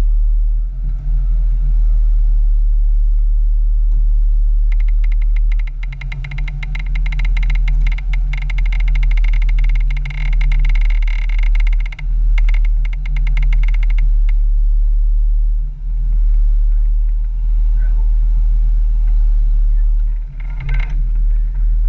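Jeep Wrangler engine running steadily under load as it drives through deep mud, the low drone dipping briefly now and then. From about five to fourteen seconds in, a dense run of rapid crackling and scraping rides over it.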